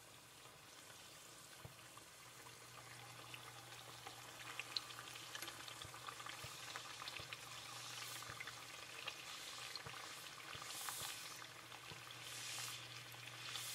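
Bánh tiêu dough deep-frying in hot oil: a soft, crackling sizzle full of small pops that gets busier a few seconds in. There are brief louder bursts of sizzling near the end as chopsticks press the dough down into the oil.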